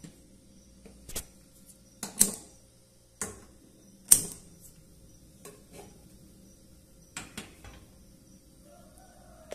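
Several sharp metallic clicks and clanks at a gas stove as a burner is lit and a stainless steel pot is set on the iron grate. The two loudest come about two seconds apart.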